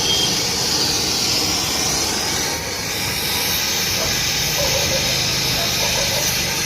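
Steady hissing from a welding torch working on a broken alloy wheel, strongest in the high register, with a faint low hum beneath.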